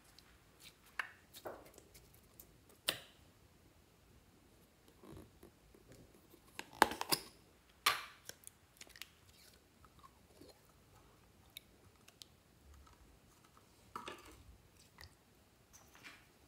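Hands squishing slime and handling a plastic slime jar, giving scattered wet squelches and light plastic clicks, loudest about seven to eight seconds in as the jar is emptied into the slime.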